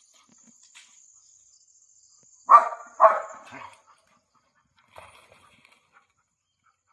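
German shepherd barking twice in quick succession, about half a second apart, then one much fainter bark about two seconds later.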